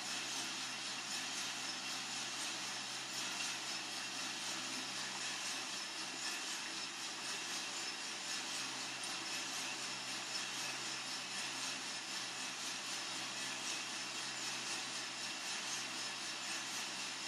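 Coffee-Tech FZ-94 drum roaster running mid-roast: a steady hiss and rustle of the turning drum and tumbling coffee beans over a low motor and fan hum, with no cracks.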